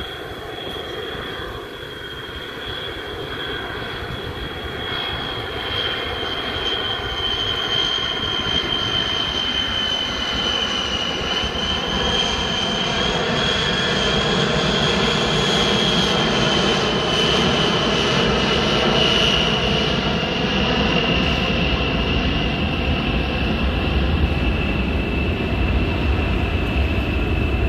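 Boeing B-52 Stratofortress's eight jet engines in a low flyover. A steady high-pitched whine rides over a broad rumble, and the sound grows louder throughout, the rumble getting heavier in the second half.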